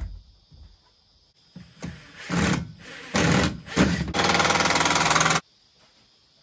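Cordless power driver driving a screw into the timber privacy screen: a few short trigger pulls, then one steady run of about a second and a half that cuts off suddenly.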